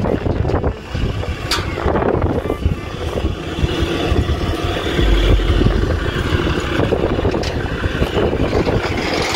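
Diesel engine of a car-hauler truck running steadily, a low rumble with a faint steady drone over it.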